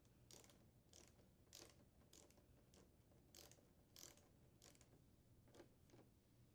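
Faint clicking of a hand ratchet driving screws tight, an uneven series of short clicks about two a second.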